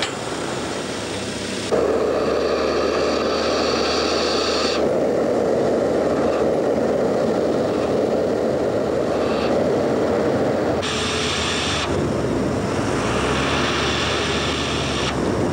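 Steady rushing noise of a film lightning-effect machine firing: aluminium powder blown up a hose and burning in a bright flare at the top of a pole. It steps louder about two seconds in and shifts in tone a few times.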